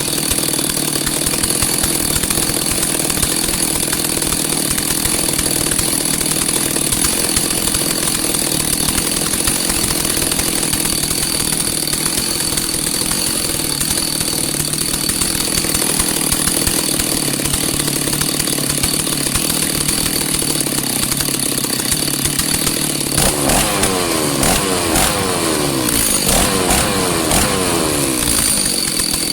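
Stihl MS 310 two-stroke chainsaw running steadily during a test run after repair to check its chain oiler. Near the end its engine speed swings up and down several times.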